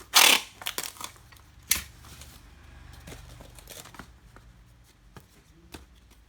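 Anti-shock plastic wrap being torn and crinkled by hand, with a loud rip at the start and another about two seconds in, then softer rustling and crackling.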